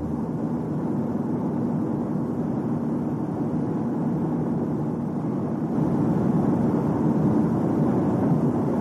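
Steady, dense rumbling noise of a moving vehicle, growing louder about six seconds in.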